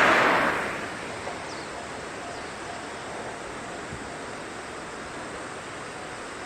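Noise of a passing JR 103 series electric train dying away over about the first second, leaving a steady background hiss.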